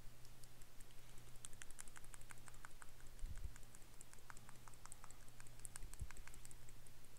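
A dropper bottle of pink acrylic miniature paint being shaken, the mixing ball inside rattling in quick, irregular clicks.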